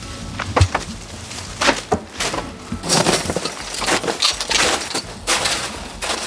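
Hand demolition of an old house's wall: irregular knocks, cracks and crunching or scraping of breaking wood and debris, busiest about halfway through.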